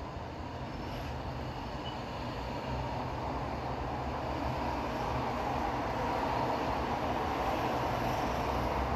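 Steady rumble of busy street traffic, cars and buses, slowly growing louder.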